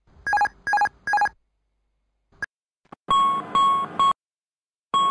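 Airbus A320 cockpit alerts sounding with the master warning: three quick chimes in a row, the continuous repetitive chime of a red warning, here for the electrical emergency configuration. After a short blip comes a second series of three longer, higher-pitched tones, and one more near the end.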